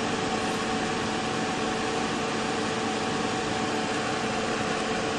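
Steady hum and hiss of background noise with a few faint steady tones, like a fan running.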